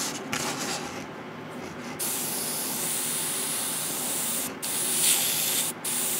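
Gaahleri GHAD-39 airbrush spraying: a fainter hiss at first, then a strong, steady hiss of air and paint from about two seconds in, cut off briefly twice near the end.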